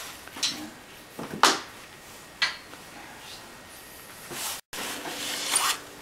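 Metal hand truck knocking and scraping against a sheet-metal appliance cabinet as it is fitted in place: a few sharp clanks, the loudest about a second and a half in, then rubbing and scraping toward the end.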